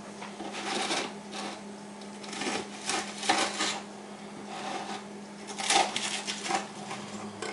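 Irregular handling noises: three clusters of short rustling and clattering sounds, over a steady low hum.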